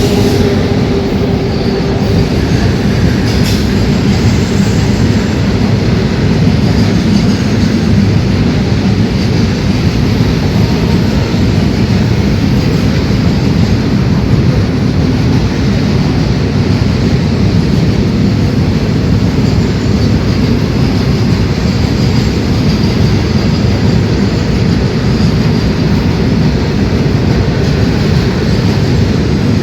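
Passenger train running past at close range: a loud, steady rumble of wheels on rails that does not let up. The last of a held tone, likely the horn, fades out about a second in.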